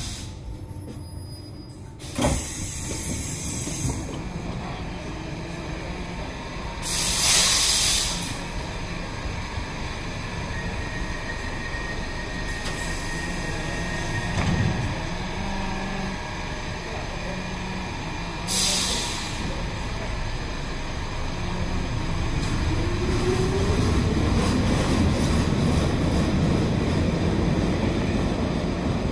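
Stockholm metro train running, with three short bursts of compressed-air hiss over its rumble. Near the end a rising whine and a growing rumble come in.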